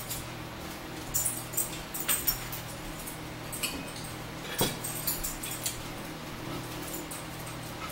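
Metal spoons and dishes clinking and rattling in short flurries, with one sharper knock about halfway through, over a steady low hum.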